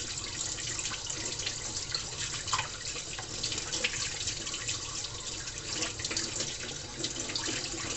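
Kitchen tap running steadily into a sink while sticky bread dough is rinsed off the hands.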